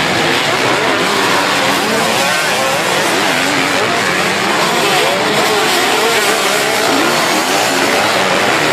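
Many motocross bike engines racing together, each revving up and down as the riders accelerate and shift through the turns, the pitches overlapping and weaving continuously.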